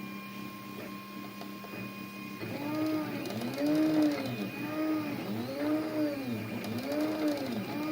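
A8 3D printer's stepper motors running during a print. First there is a steady hum, then, from about two seconds in, a repeating whine that rises and falls about once a second as the print head speeds up and slows down on each move.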